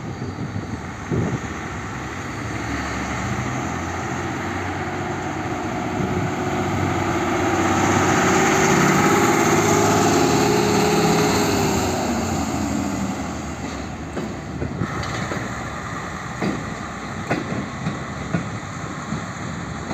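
WM-15A track-maintenance railcar's diesel engine running as it rolls past hauling a ballast hopper wagon: it swells to its loudest about halfway through, then fades with the engine pitch dropping. A few sharp clicks come from the wheels and track as it moves away.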